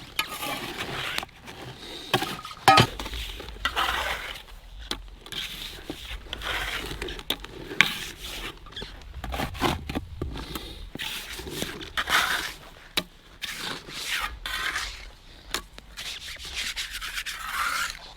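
Trowel scraping and chipping at pond ice, digging out a crack and working slush into it: irregular scraping strokes with sharp clicks.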